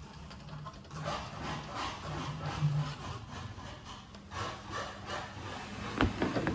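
Hand-cranked etching press being turned to pull a print from an etched copper plate: the bed and blankets rub and scrape under the steel roller in uneven waves. A sharp knock about six seconds in.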